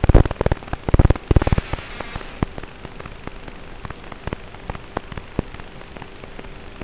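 Crackling static: a dense run of clicks and pops in the first two seconds, then scattered single clicks over a steady hiss and a faint steady hum.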